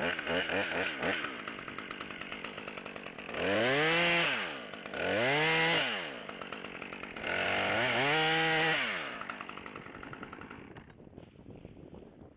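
Husqvarna T540 XP top-handle two-stroke chainsaw starting abruptly and running unevenly for about a second, then revved up and back down three times, with the last rev held longest. It drops back toward idle and fades near the end.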